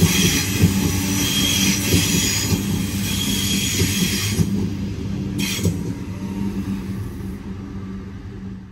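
Sydney Trains electric suburban train running through the platform with a high-pitched wheel squeal over a steady low hum. The squeal lasts about four and a half seconds, then the noise gradually fades as the train moves off.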